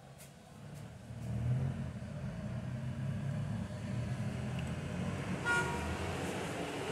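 Low rumble of road traffic going by, with a short horn toot about five and a half seconds in.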